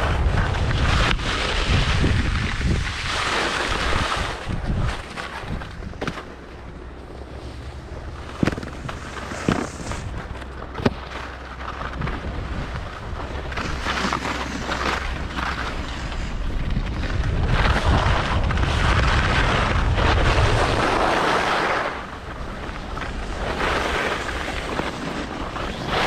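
Wind rushing over an action camera's microphone while skiing downhill, with the skis hissing over packed groomed snow, swelling and fading with the turns. A few sharp clicks or knocks come about a third of the way in.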